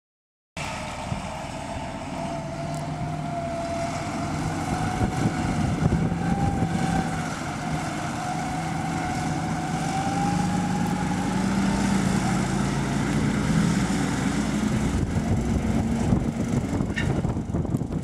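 Fendt 924 tractor's engine running under way as it tows a Rolland trailer across maize stubble and pulls away. A steady whine wavers slightly in pitch above the engine note.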